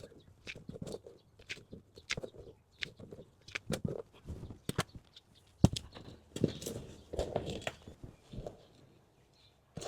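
Hands working potting soil in a planter: irregular scraping, rustling and small taps, with one sharp knock a little past halfway.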